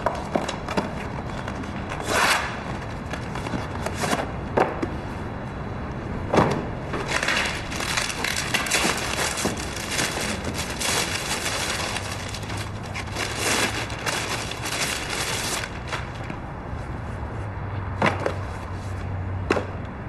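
Plastic courier mailer bags rustling and crinkling as they are handled and torn open, with sharp knocks of packages set down on a counter.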